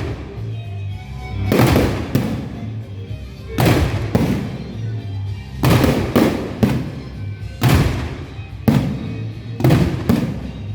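Fireworks exploding, with a loud bang every second or two, some in quick pairs, each trailing off in an echo. Music plays underneath.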